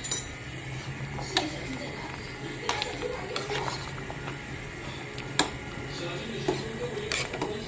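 A utensil clinking and knocking against a cooking pot about six times, spread over several seconds, over a steady low hum.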